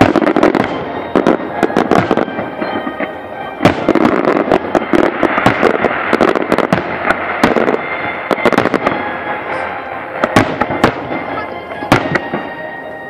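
Aerial firework shells bursting at a large display: a rapid string of sharp bangs, heaviest about four seconds in and again near the end, over continuous background noise.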